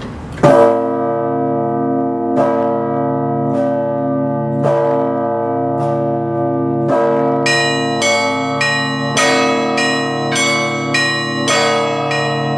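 Moscow Kremlin church bells ringing in the Russian Orthodox manner. A large bell is struck loudly about half a second in and again every one to two seconds, each stroke ringing on with a long low hum. From about halfway on, smaller bells join in a quick chime of about two strikes a second.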